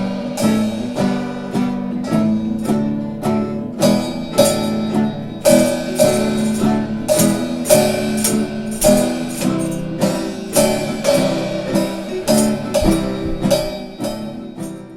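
Acoustic guitar music, strummed in a steady rhythm of about two strokes a second, fading out near the end.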